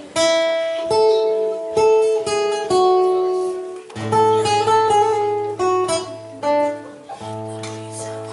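Acoustic guitar playing a melody of plucked notes, the instrumental introduction to a song. Lower bass notes come in about four seconds in.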